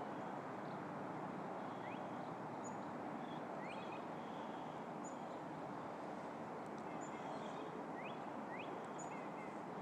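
Small birds chirping faintly, a few short rising calls and high peeps, over a steady hum of distant car traffic.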